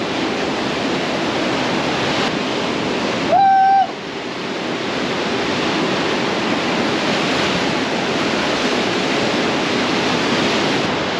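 Ocean surf: big waves washing in and breaking in a steady, loud wash of noise. About three and a half seconds in, a brief steady tone, about half a second long, cuts in over it.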